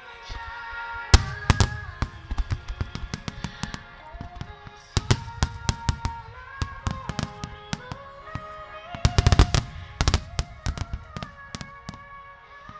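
Fireworks shells bursting in rapid salvos of sharp bangs, in clusters about a second in, around five seconds in and around nine to ten seconds in, over slow, sustained accompanying music.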